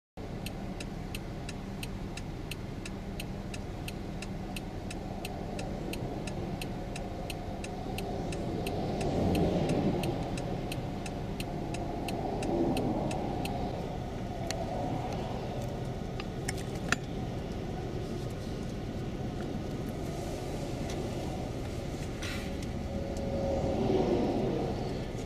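Highway traffic passing: a steady rush of tyres and engines, swelling as vehicles go by about nine seconds in and again near the end. A regular light ticking, two or three a second, runs through the first two-thirds.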